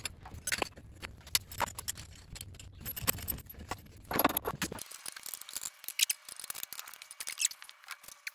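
Scattered metallic clicks and clinks of hand tools on a steel axle-splitter tool and axle housing as it is fitted and tightened. The low background hum drops out abruptly about five seconds in, and the light clicking goes on.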